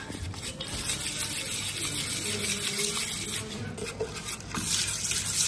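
A spoon stirring chicken 65 masala powder and water into a wet paste on an enamel plate, a continuous scraping, mixing noise.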